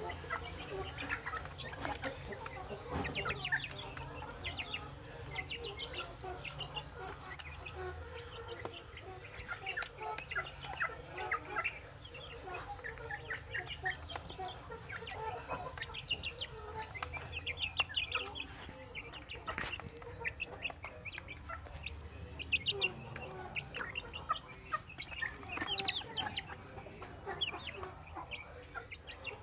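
A flock of young chickens peeping and clucking nonstop while they feed, with many short, high chirps overlapping and scattered sharp clicks.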